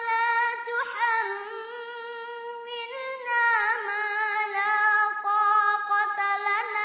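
Quran recitation in a high, melodic chanting voice, drawing out long held notes with ornamented turns in pitch.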